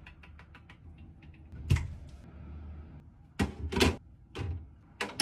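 A run of light clicks with several louder sharp knocks, spread unevenly, the loudest about a second and a half in and a cluster around three and a half to five seconds in.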